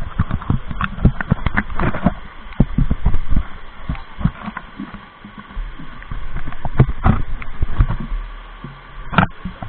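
Irregular clatter and knocks of cooking gear being handled: a pot, plates and bowls set down and moved on stone, with low thumps, over the steady rush of a river.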